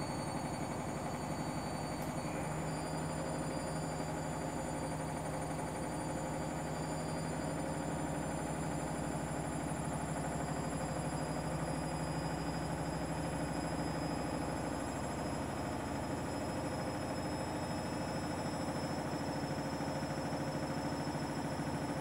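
Front-loading washing machine spinning its drum at high speed: a steady motor hum with a high whine that slowly rises in pitch as the spin builds.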